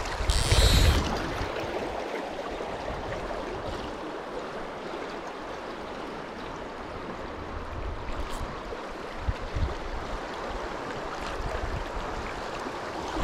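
Fast stream current rushing steadily over a shallow, rocky riffle. There is a brief louder rustle on the microphone about half a second in.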